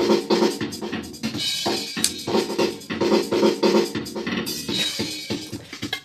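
Electronic drum sounds from a PAXCESS 7-pad roll-up electronic drum pad playing its demo: a fast programmed drum beat with pitched backing tones, with extra pad sounds triggered as a drumstick strikes the pads.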